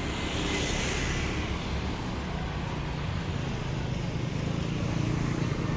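Street traffic: a motorbike engine passes close by about the start, over a steady low rumble of other engines.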